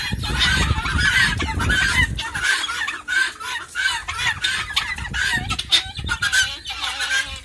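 A mixed flock of guinea fowl and turkeys calling, with many short, rapid calls overlapping all the way through. A low rumble lies under the calls for the first two seconds.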